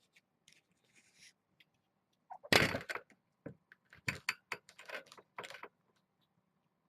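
A flurry of sharp knocks and clattering rattles, the loudest about two and a half seconds in, then several smaller knocks over the next three seconds.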